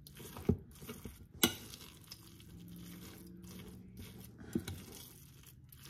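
A spoon stirring ground beef and oatmeal in a bowl, soft mixing with a few sharp clinks of the spoon against the bowl.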